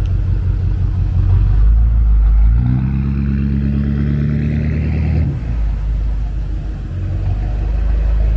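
BMW X6M's twin-turbo V8, straight-piped with an X-pipe and no mufflers, resonators or cats, idling with a deep, throaty rumble. About two and a half seconds in it is revved up, held for nearly three seconds, then drops back to idle.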